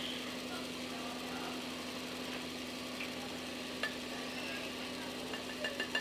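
A measuring cup knocked against the rim of a blender jar to shake out cocoa powder: one sharp tap about four seconds in, then a quick run of taps near the end, over a steady low hum.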